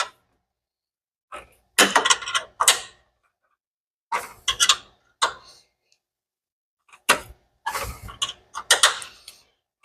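A wrench working a headlight bracket bolt tight, making clusters of metallic clicks and scrapes in three short bursts.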